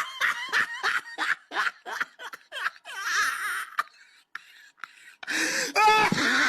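A person laughing in quick short bursts, then a brief high cry near the end.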